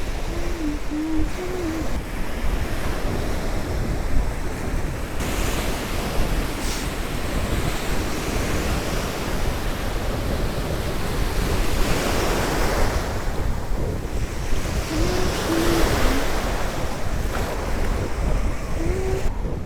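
Sea waves breaking and washing up the beach, swelling louder a couple of times, with strong wind buffeting the microphone.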